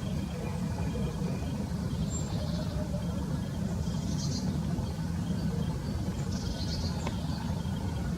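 Early-spring forest ambience: a steady low rumble, with a few faint, brief high chirps of birds about four and six and a half seconds in.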